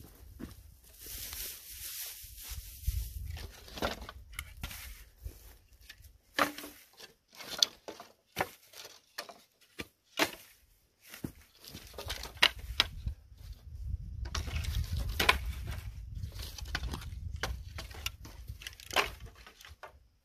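Dry grass tinder rustling and crackling as it is handled, and dry sticks being laid over it with irregular sharp clacks and knocks of wood on wood.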